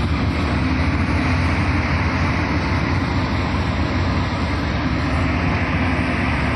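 Steady, loud engine rumble with a low, even hum underneath.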